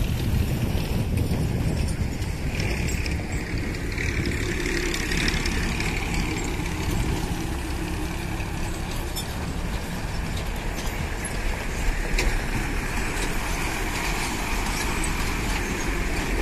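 Heavily loaded diesel lorries driving past close by on an unpaved road: a steady engine rumble with tyre and road noise. There are a few sharp knocks and rattles about twelve seconds in.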